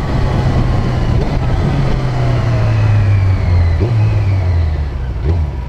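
Motorcycle engine and wind noise while riding, the engine note falling slowly and steadily as the bike slows.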